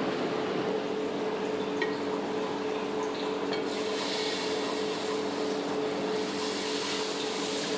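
Dosa batter being ladled onto a hot tawa over a gas flame, a steady hiss that grows brighter about halfway through as the batter spreads, over a constant low hum.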